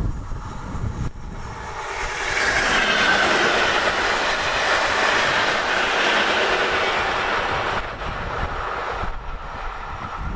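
ČD class 460 electric multiple unit passing on the line. The wheel and rail noise builds about two seconds in, stays loud for about six seconds, then falls away as the train moves off.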